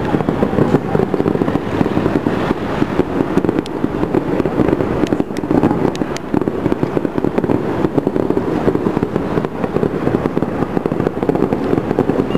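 Aerial fireworks going off in a dense, unbroken barrage of rapid bangs and crackling.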